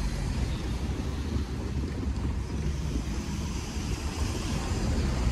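Wind buffeting the microphone: a steady, uneven low rumble with a hiss above it.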